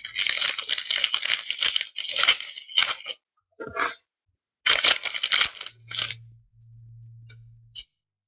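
A hockey card pack's wrapper being torn open and crinkled: a dense run of tearing and rustling for about three seconds, then shorter rustles around four and five seconds in. A faint low hum sits underneath near the end.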